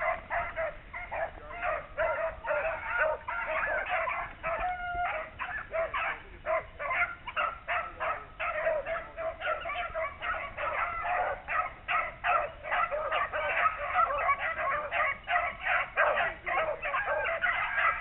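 A pack of beagles baying on a rabbit's trail: many overlapping voices in a constant chorus of quick barks and bawls, the sound of the hounds running a swamp rabbit.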